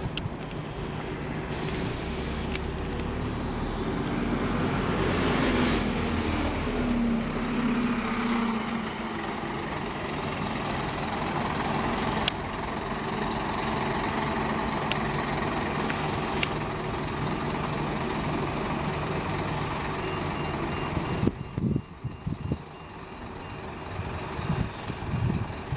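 Scania N230UD double-decker bus pulling away from a stop: two short hisses of compressed air in the first few seconds, then its engine revs up with a rising pitch as it moves off and runs steadily, falling away near the end as it drives off.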